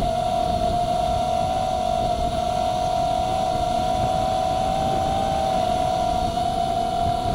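FPV quadcopter's motors and propellers in flight, heard through the Runcam 3S action camera's onboard microphone: a steady whine that wavers slightly in pitch, over a low rumble of wind on the microphone.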